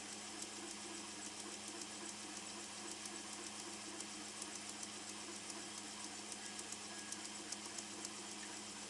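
Laser engraver with a rotary attachment running while it engraves a glass tumbler. It gives a steady hum and fan noise, with irregular light ticks scattered throughout.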